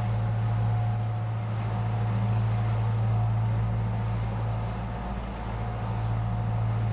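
Diesel engines of a Leopard 45 catamaran running steadily under way, a constant low drone with a faint steady whine above it.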